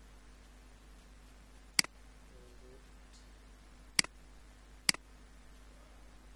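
Three sharp computer mouse clicks over a steady low electrical hum, the first about two seconds in and the last two close together near the end.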